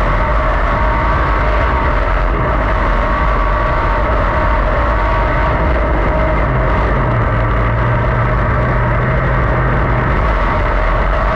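410 sprint car's V8 engine running at speed on a dirt track, heard from an onboard camera in the cockpit; loud, with the note holding fairly steady and shifting slightly about halfway through.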